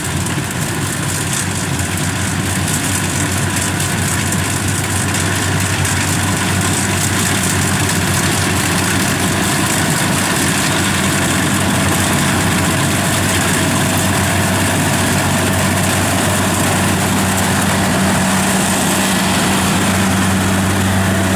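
Kubota rice combine harvester's diesel engine running steadily as the machine cuts and threshes rice: a constant low drone that holds an even pace throughout.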